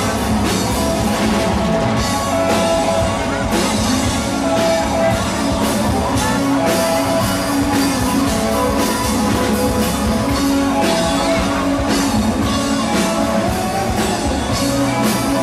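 Live rock band playing loud, with electric guitar over a drum kit keeping a steady beat.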